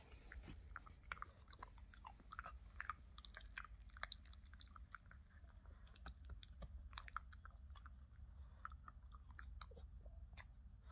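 Boston terrier chewing on a bone-shaped treat: many small, irregular, faint clicks of teeth and mouth on the chew.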